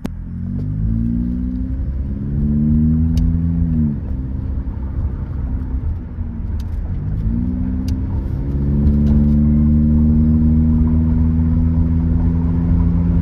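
Honda K24A4 2.4-litre four-cylinder engine with a short-ram intake, velocity stack and HKS muffler, heard from inside the car as it pulls away. The engine note climbs in pitch, breaks off and falls about four seconds in, then climbs again and holds steady under load.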